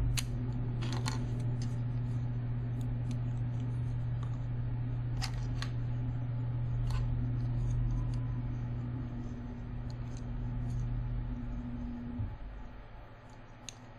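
Small plastic model-kit parts clicking now and then as they are handled and pulled apart, over a steady low hum that stops about twelve seconds in.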